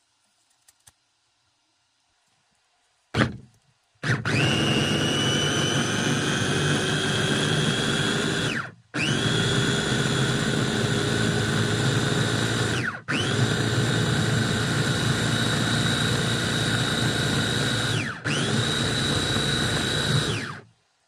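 Electric food chopper's motor chopping tomatoes, potatoes and sausage to a pulp. It runs in four pulses of a few seconds each, after a short blip about three seconds in, its whine rising as it spins up and dropping at each brief stop.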